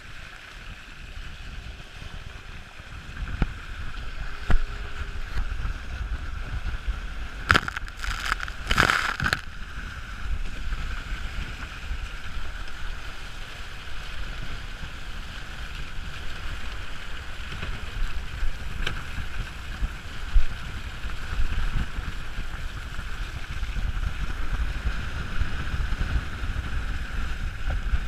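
Wind buffeting the microphone and water rushing past the hull of a WindRider Rave hydrofoil trimaran sailing fast in strong wind, as a steady rushing rumble. A cluster of sharp hits about eight to nine seconds in.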